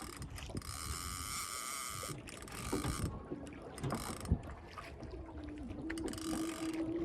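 Fishing reel giving a rapid ratcheting buzz in five separate bursts of up to about a second and a half, with short pauses between.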